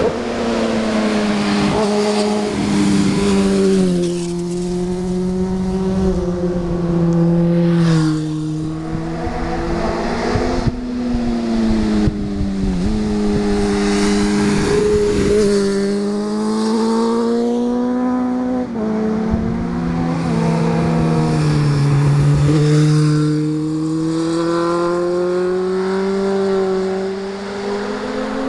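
Sport motorcycle's inline-four engine running under way at fairly high revs. Its pitch holds steady for a few seconds, then steps down or glides up several times as the revs change through the bends.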